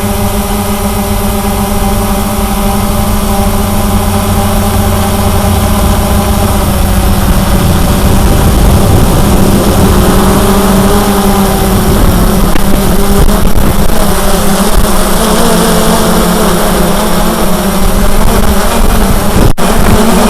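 Cheerson CX-20 quadcopter's brushless motors and propellers running, a steady multi-tone whine that wavers in pitch in the middle and grows rougher toward the end as the craft adjusts its thrust.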